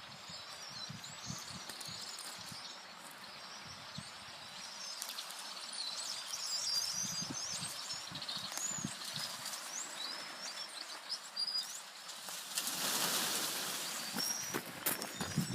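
Small birds chirping and singing in quick, high, twittering phrases over a steady outdoor hiss, with a short rush of noise near the end.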